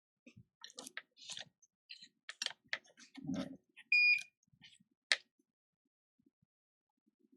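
Small tools and parts clicking and tapping on a repair bench, with a brief low handling thump, then one short high electronic beep about four seconds in, the loudest sound, followed by a sharp click.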